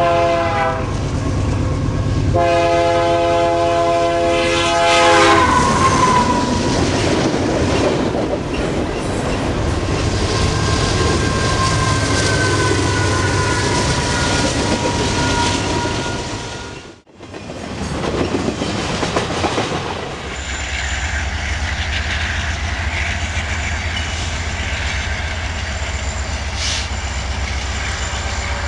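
Diesel freight locomotive's air horn sounds a short blast, then a long one, as the train approaches. The locomotives and double-stack container cars then pass close by with a loud rumble and clatter, with a thin high squeal for several seconds midway. After a sudden cut, a second freight with a Union Pacific diesel locomotive and covered hopper cars rolls past with a steady low rumble.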